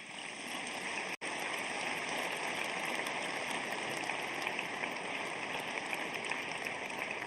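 Audience applauding: a steady spell of clapping that briefly cuts out about a second in and begins to die away near the end.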